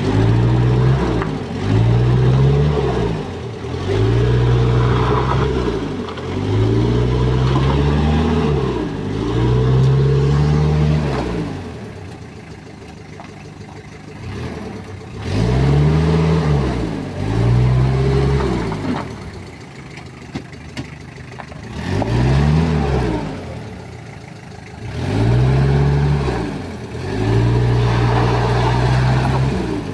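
Mazda R2 four-cylinder diesel engine being revved in short blips about ten times, each rising and falling back to idle, with a few seconds of idle around the middle.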